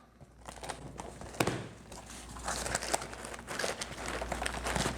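Gift-bag packaging handled and unwrapped by hand: an irregular crinkling rustle, with a sharper click about one and a half seconds in.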